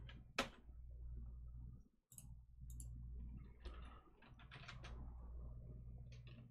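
Computer keyboard keys clicking as a web address is typed: one sharp click about half a second in, then a quick run of key presses around four to five seconds in, over a steady low hum.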